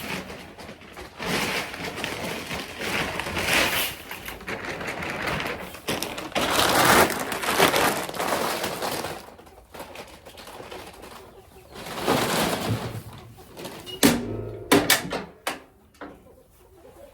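Bags of animal feed being poured into a 55-gallon drum: several long rushes of pellets sliding in, followed near the end by a few sharp knocks.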